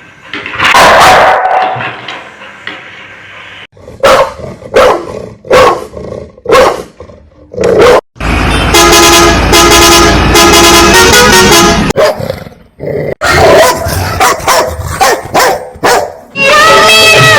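Dogs barking in a series of short, loud barks, in two runs, with a steady passage of stepping pitched notes between them.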